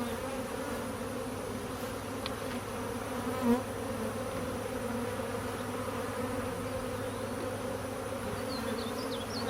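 Honeybees buzzing in a steady drone around an opened hive, with a brief knock about three and a half seconds in.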